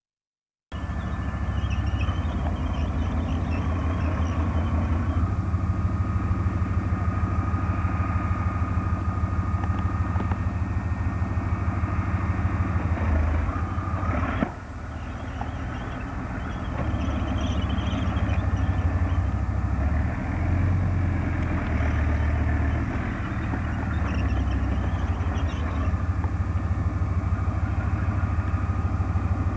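Diesel engine of a tracked armoured recovery vehicle running steadily with a low rumble. A thin steady whine sits above it for several seconds and stops about halfway, where the sound briefly dips.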